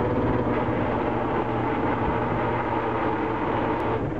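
Lobster boat's engine and hydraulic pot hauler running at a steady drone while a trap is hauled up from the water.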